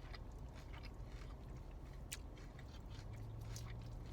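Close-up chewing of a mouthful of a Chipotle burrito bowl (steak, rice, beans, lettuce), with small wet mouth clicks scattered through, over a low steady hum.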